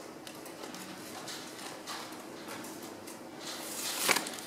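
Soft handling noises from gloved hands and equipment working over a resuscitation manikin: faint rustles and small knocks, with one louder brief rustle about four seconds in.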